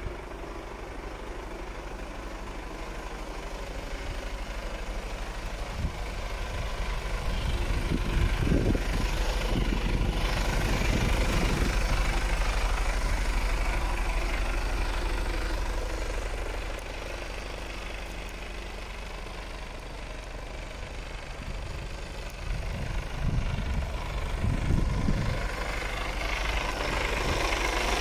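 Mercedes-Benz Actros 1843 tractor unit's diesel engine idling steadily. It gets louder in the middle and again near the end, and a few short low thumps come through.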